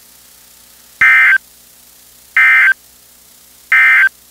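NOAA Weather Radio SAME end-of-message code (NNNN) sent three times: three short bursts of digital data tones, each about a third of a second long and about 1.3 s apart, over faint steady radio hiss. It marks the end of the tornado warning broadcast and tells weather radios to mute.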